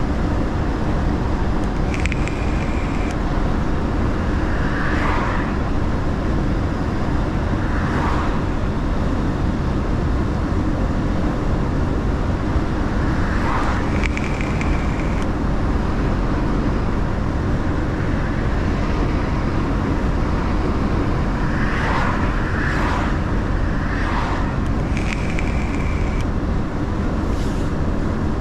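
Mercedes-Benz Actros L truck driving at steady speed, with a constant low engine and road rumble. Several brief swells of passing noise come and go, and a short high tone sounds three times, about twelve seconds apart.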